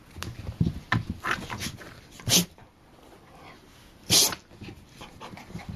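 Two dogs play-wrestling on the floor: scuffling and low, uneven mouthing noises, with two short, sharp, hissing huffs about two and four seconds in, the loudest sounds.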